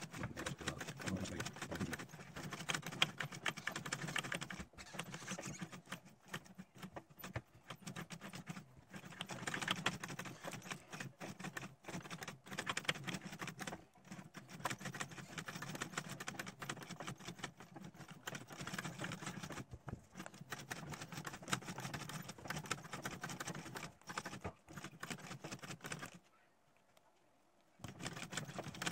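Sewing machine stitching through leather: a fast, even clatter of the needle mechanism, with a few short pauses and a stop of about a second and a half near the end.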